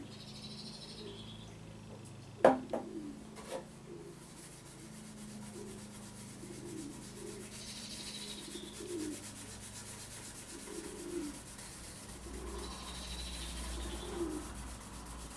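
Cloth rubbing and wiping over the ABS plastic casing of a GPO 746 telephone, working in an acetone and methylated-spirits mix to smooth the surface. Two or three sharp knocks come about two and a half to three and a half seconds in, the loudest sounds.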